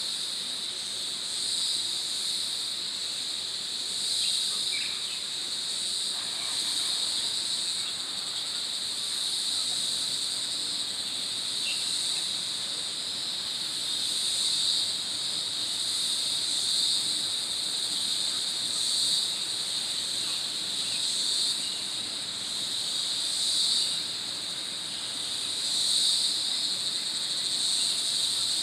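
Insect chorus in the forest: a continuous high-pitched drone that swells and fades every couple of seconds.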